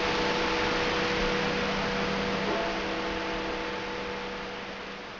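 Steady hiss with a low electrical hum, fading out gradually over the second half.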